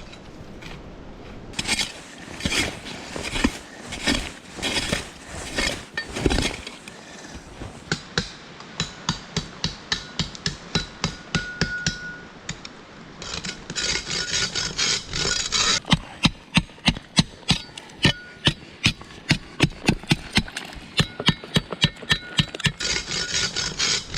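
Steel blade of a sapper-style trench shovel chopping and scraping into hard, crusty, icy snow to dig out a fire pit. A few heavier strokes about a second apart give way to a fast, even run of sharp strikes, two to three a second.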